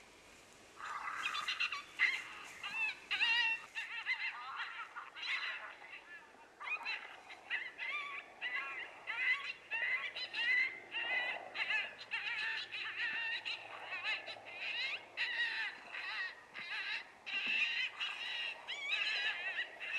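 Coyotes yipping and howling in a chorus of many overlapping, wavering calls, starting about a second in and running on densely.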